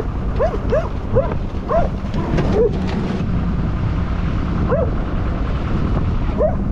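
A dog barking in short, high yips: a quick run of about three a second for the first two seconds, one more about five seconds in, then another run starting near the end, over a steady low rumble. The barks are aimed at jet skis passing the boat.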